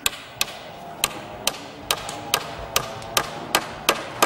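Repeated sharp strikes of a hand tool on bamboo poles at a steady pace, about two to three blows a second, each a short crack with a little ringing after it.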